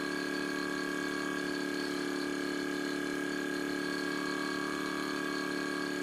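Small electric air-sampling pump of a duct-cleanliness vacuum test running steadily with an even hum and whine. It draws air at its normal flow through the sampling nozzle, not stalled.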